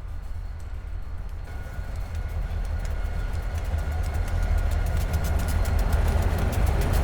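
Train approaching: a deep rumble that grows steadily louder, with rail clicks becoming more frequent and a faint steady tone above.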